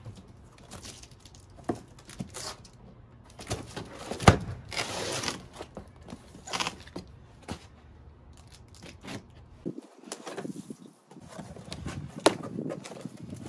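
Large cardboard box holding a boxed steel table being handled and opened on concrete: scattered knocks and thumps, the loudest about four seconds in, with rustling and scraping of cardboard as the lid is pulled open.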